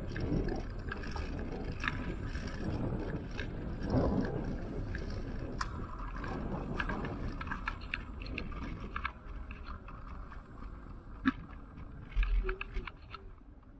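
Ride noise of a Ninebot ES2 electric kick scooter on concrete: a steady rumbling rattle from its small wheels and frame, with a few sharp clicks. It dies down over the last few seconds.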